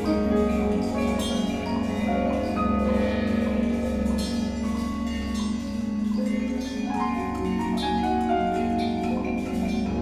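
Percussion ensemble on marimbas and vibraphones playing many overlapping, ringing mallet notes with scattered strikes: an improvised, sparse and ever-changing texture.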